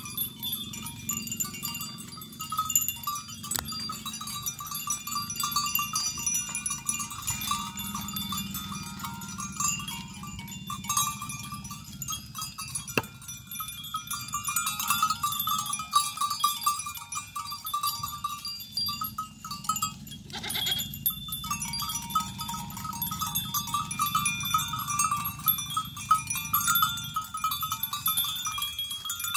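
A herd of goats feeding on leafy cut branches, with leaves rustling and one goat bleating once about two-thirds of the way through. Under it runs a steady, high-pitched chirring.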